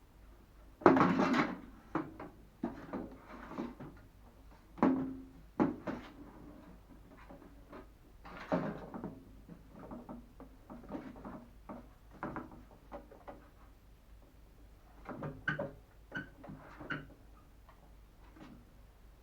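Irregular knocks, clatters and rattles of microwave oven parts being handled during disassembly, the loudest about a second in.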